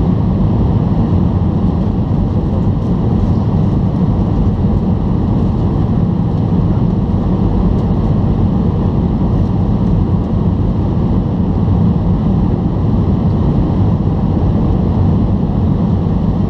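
Steady low rumble of engine and airflow noise inside the cabin of an Airbus A320-214, with its CFM56-5B turbofans, descending on approach to land.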